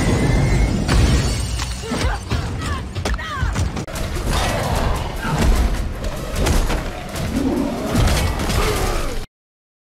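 Action movie trailer sound mix: music under a run of crashes, shattering and hard impacts. It cuts off abruptly near the end.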